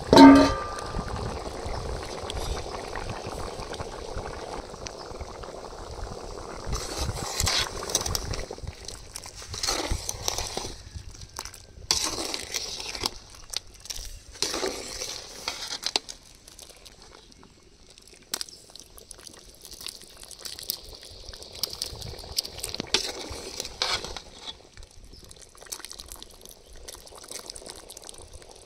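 Rabbit curry gravy bubbling and sizzling in a pot as it simmers, an uneven hiss with bursts of crackle. A short, loud ringing clang right at the start.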